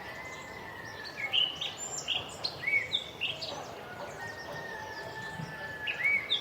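Birds calling over a steady ambient hiss: a long, slightly falling whistle, then a run of quick hooked chirps about a second in, another long whistle, and chirps starting again near the end.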